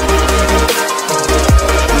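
Background electronic music with a steady beat: deep kick drums falling in pitch over heavy bass. The bass drops out for about half a second near the middle.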